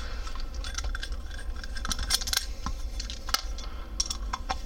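Irregular small metallic clicks and ticks of a screwdriver bit working the screws of a knife handle, with the light knocks of metal parts being handled.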